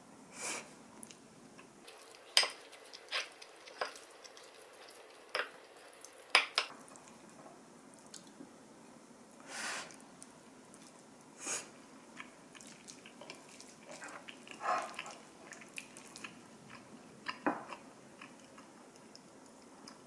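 Spoon tapping and scraping on a ceramic plate during a meal, with chewing in between. The sharp clicks come at irregular intervals, several in the first seven seconds, and softer sounds follow.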